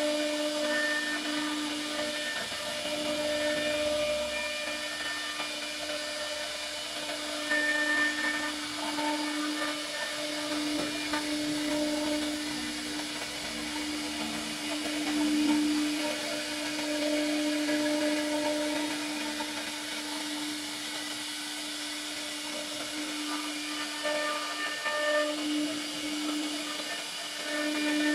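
CNC router spindle running a profile bit through a wooden panel: a steady whine over the hiss of the cut, swelling slightly now and then as the cutter moves along.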